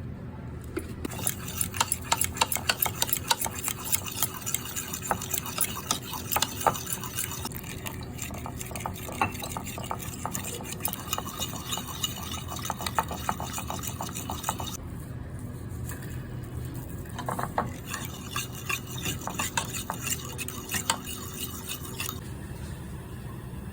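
A metal utensil stirring and scraping in a cooking vessel, with rapid clinks in two spells: the longer first spell stops briefly, then a second spell follows.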